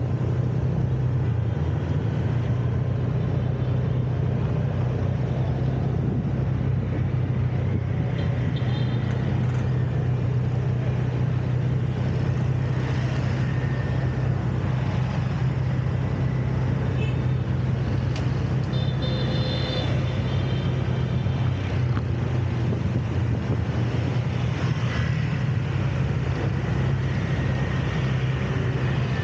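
City street traffic heard from a moving vehicle: a steady low engine drone over a constant wash of road noise. A few short high beeps come about two-thirds of the way through.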